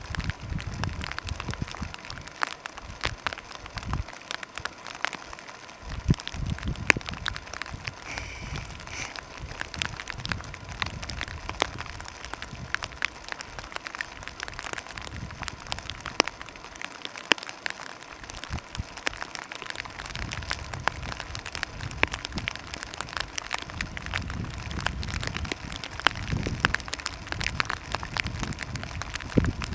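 Light rain pattering as scattered sharp ticks of drops, over a low rumble of wind on the microphone that swells and drops away twice.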